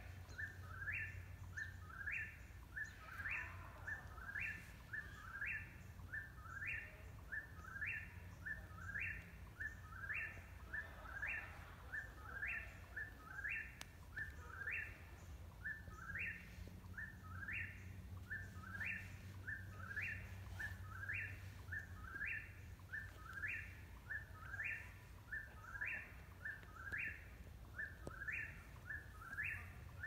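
Eastern whip-poor-will singing, its three-part phrase with a rising last note repeated over and over, about every three-quarters of a second without a pause.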